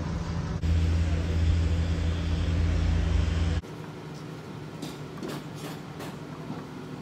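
A machine engine runs steadily with a loud low hum that grows louder about half a second in. About three and a half seconds in the hum drops off sharply to a fainter engine drone with a few light clicks.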